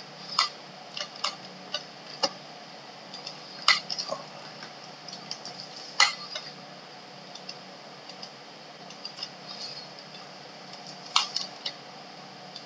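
Scattered, irregular clicks of a computer mouse and keyboard, the sharpest about six seconds in and again near eleven seconds, over a faint steady hum.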